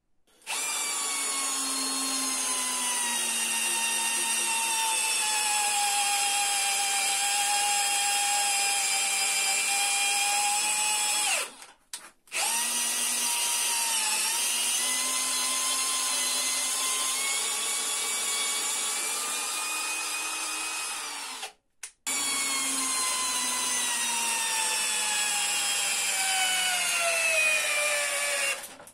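Brushless cordless drill/driver driving a large screw into wood in three long trigger pulls with short pauses between. The motor whine slowly sinks in pitch as the load builds, then dips sharply before the first stop. The drill is straining at the limit of what it can drive.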